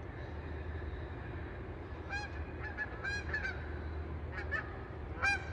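Birds calling: a series of short, pitched calls in quick groups, starting about two seconds in, over a steady low background rumble.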